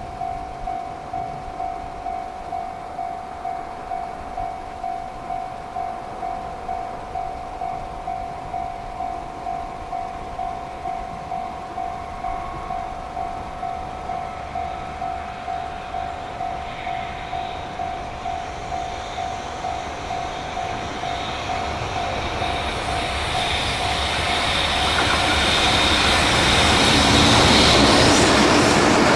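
Japanese level-crossing warning bell ringing in a steady, even pulse. Then a freight train of Chiki rail-carrying flatcars approaches and passes, its noise growing over the last ten seconds until it drowns out the bell.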